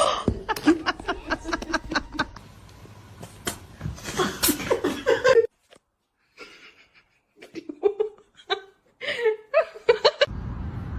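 People laughing in short bursts and chuckles. The laughter cuts off abruptly about halfway through, then starts again after a brief pause, and near the end gives way to a steady background noise.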